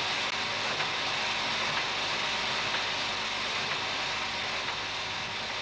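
Sheet-fed offset printing press running steadily: an even mechanical hiss and rumble with faint regular ticks about once a second.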